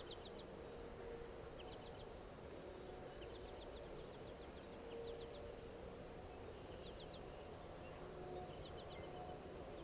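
Faint open-field ambience: small birds chirping in short, quick clusters every second or so, over a low, steady rumble.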